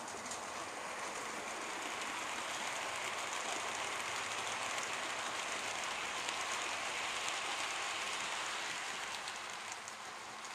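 A train of coaches running past on the track: an even rushing of wheels on rails that builds and then fades near the end as it passes.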